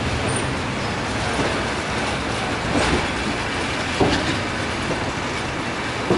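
Passenger train running on the rails, heard from on board: a steady rolling rumble with a few sharp wheel clacks over rail joints.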